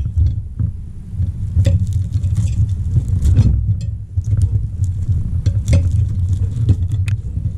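A serrated steak knife sawing through a roasted seal flipper, with scattered clicks and scrapes of the blade on the ceramic plate, over a steady low rumble.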